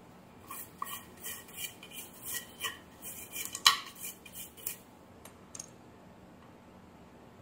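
A brush scrubbing across a circuit board in short scratchy strokes, about two or three a second, with one sharper click near the middle. The strokes stop about five seconds in.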